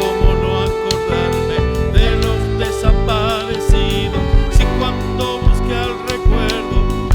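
A live folk ensemble plays an instrumental passage between sung verses. A long note is held under a wavering melody line, over low beats that come about once a second.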